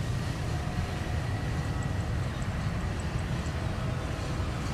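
Twin-engine jet airliner's engines at takeoff thrust during the takeoff roll, heard from a distance as a steady roar that is heaviest in the low end.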